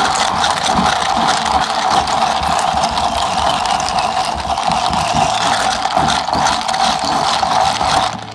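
Bar spoon stirring an iced green lemon drink in a tall plastic cup with a dome lid, giving a loud, steady, dense crackling hiss.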